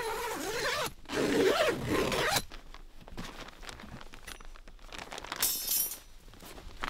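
A zipper on the rooftop tent's fabric window being pulled open in two long runs, the second louder, ending about two and a half seconds in. Then quieter rustling of the tent's fabric cover, with a short sharp scrape about five and a half seconds in.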